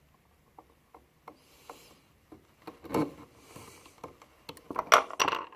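Small clicks and rubbing from pen-kit parts being handled and fitted together by hand. A louder scrape comes about three seconds in, and a cluster of sharper knocks and scrapes comes near the end.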